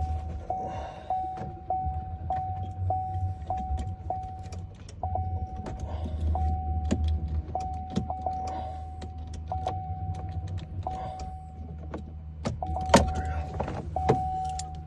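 Vehicle warning chime repeating about every 0.6 s, a steady tone restarting each time with a click, over a low hum. Light metallic clicks and key and tool rattles come from work on the ignition lock, with a louder knock near the end.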